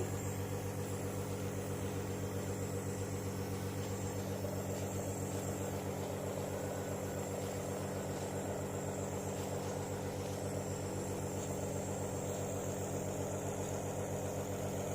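Small piston-compressor nebulizer running steadily, a constant mechanical hum with a fast, even pulse as it mists inhaled medicine.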